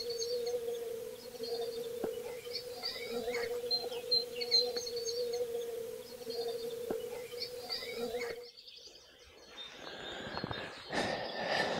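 Wild bees humming in a steady drone at the flowers, with small birds chirping over it. The hum and birdsong cut off suddenly about eight and a half seconds in, and a rustling noise rises near the end.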